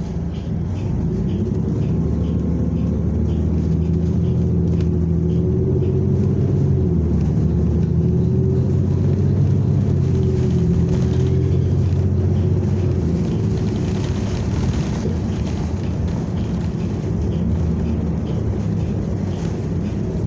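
Interior sound of a New Flyer XN40 natural-gas city bus pulling away from a stop: its engine and drivetrain run low and get louder about a second in as it accelerates, with the pitch rising and falling through the middle as it drives on.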